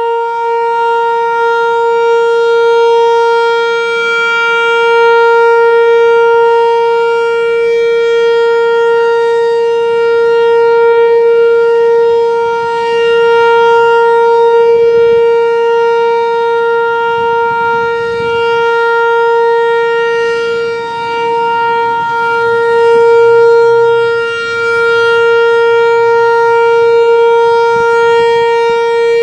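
Whelen Vortex R4 outdoor warning siren sounding a steady tone at constant pitch, a steady alert signal. Its loudness swells and fades slowly every several seconds as the rotating siren head sweeps past.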